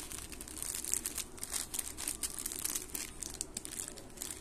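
Plastic instant-noodle packet crinkling irregularly as it is handled and turned in the fingers.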